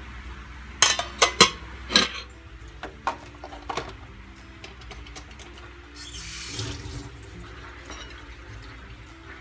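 Washing dishes at a kitchen sink: a stainless steel pot and metal utensils clank sharply several times in the first two seconds, with a few lighter clinks after. A short rush of water about six seconds in.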